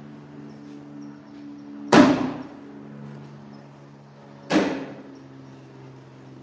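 Two thuds about two and a half seconds apart: cornhole bags landing on a wooden cornhole board.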